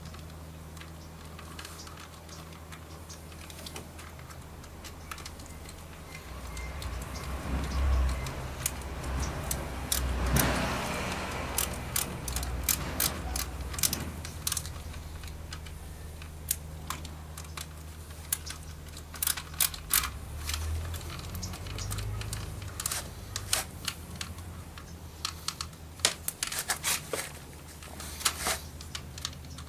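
Irregular small clicks and taps of a Phillips screwdriver and hard plastic parts being handled while working a screw into a car door's power window switch panel, with a louder rustling stretch from about seven to twelve seconds in.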